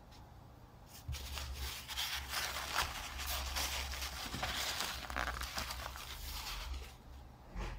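Paper towel rustling and crinkling in the hand, a dense run of small crackles lasting about six seconds, then a short final rustle near the end.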